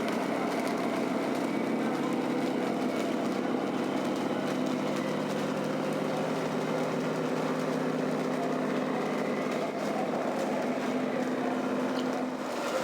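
A radio-controlled scale model vehicle running steadily: a constant droning hum with a faint whine above it.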